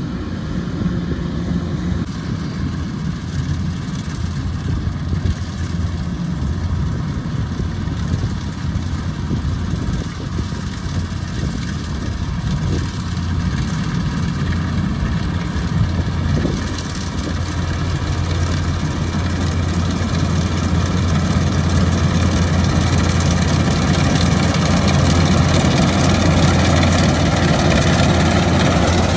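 Kubota DC-105X rice combine harvester's diesel engine running steadily with a deep hum, growing gradually louder through the second half.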